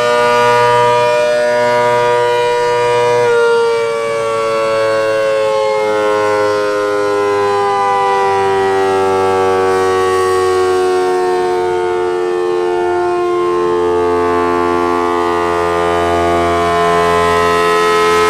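Half-scale 3D-printed model of an ACA Hurricane 130 siren sounding loud and steady, a chord of several tones; about three seconds in its pitch begins a slow, even fall that goes on throughout.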